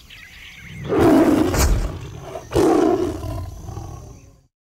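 Tiger roar sound effect: two big roars about a second and a half apart, the second fading away.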